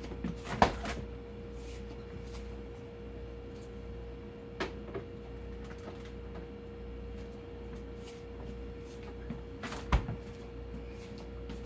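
Kitchen doors and containers being handled while food is put away. There is a sharp knock about half a second in, a lighter one near five seconds and another sharp knock near ten seconds, all over a steady hum.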